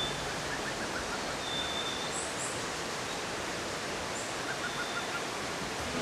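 Rainforest ambience: a steady background hiss, with faint bird calls on top. There are two short runs of quick notes, about a second in and again near the end, and a thin high whistle held briefly a few times.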